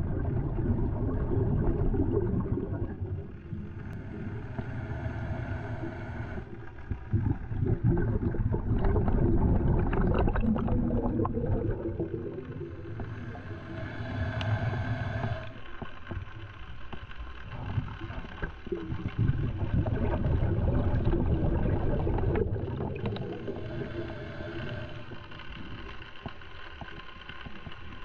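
Scuba diver breathing through a regulator underwater: slow breaths, each exhale a long low bubbling rumble, with quieter inhales between that carry a faint steady hum from the regulator.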